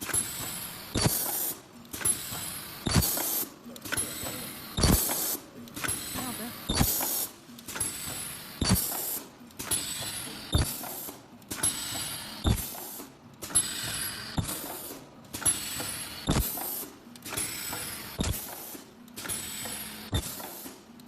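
Ultrasonic powder-puff welding and forming machine cycling about every two seconds. Each cycle is a sharp clack followed by a short rushing noise with a faint, thin high tone, repeated about eleven times.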